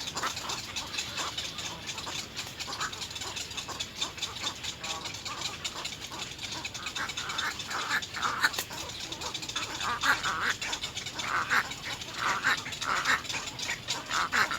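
Little egret chicks giving harsh, squawking begging calls in the nest, the calls coming thicker and louder in the second half, with scattered clicks.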